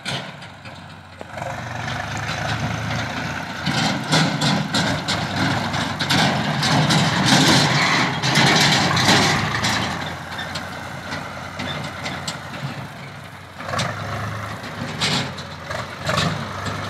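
Swaraj 735 FE tractor's three-cylinder diesel engine running as it pulls an empty steel trailer over rough ground, with short knocks and rattles. It grows loud about a third of the way in as the tractor passes close, then drops back.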